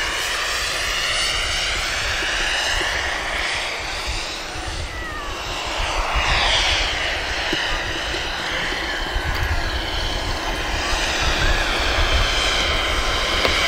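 Turbine-powered radio-controlled Kaman K-MAX model helicopter flying with a sling load. Its turbine and rotors run steadily, the tone shifting as it moves, and it grows louder toward the end.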